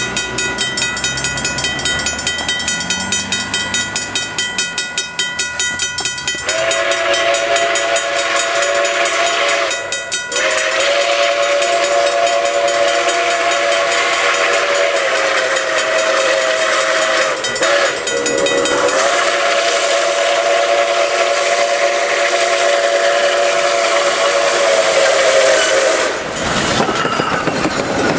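Nickel Plate Road 765, a 2-8-4 Berkshire steam locomotive, blowing its steam whistle for a grade crossing in the long, long, short, long pattern, starting about six seconds in and holding the last blast until just before it reaches the crossing. A grade-crossing bell rings before the whistle starts. Near the end the whistle stops and the locomotive passes close by with a hiss of steam and clatter of wheels.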